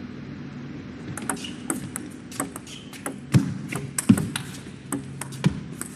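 Table tennis rally: the ball ticks sharply off bats and table about twenty times, at an uneven pace. Three louder, deeper knocks come midway and near the end, where the rally stops.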